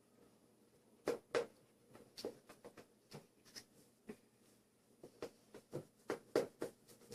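Scattered light taps and clicks of a spoon against a dish while baking soda is measured out for slime, with two louder taps about a second in and a quicker run of them near the end.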